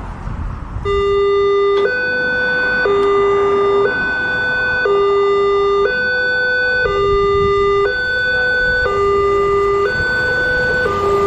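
Railway level-crossing warning siren starting about a second in, then sounding a two-tone hi-lo alarm. The two steady notes swap about once a second.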